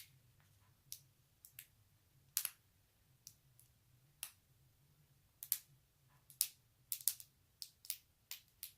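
Protective plastic film being slowly peeled off a new laptop screen, crackling in irregular sharp ticks that come more often in the second half.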